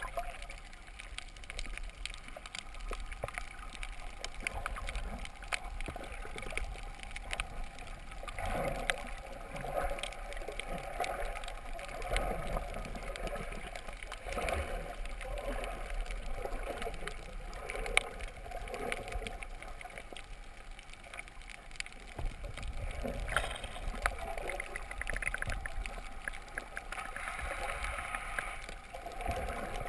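Underwater water noise picked up by a GoPro in its waterproof housing while snorkeling: an uneven rush that swells and fades, with scattered clicks and one sharp click about 18 seconds in.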